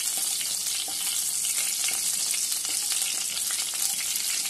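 Mustard seeds and urad dal sizzling in hot oil in a pan, a steady hiss dotted with many small crackles as the seeds begin to splutter.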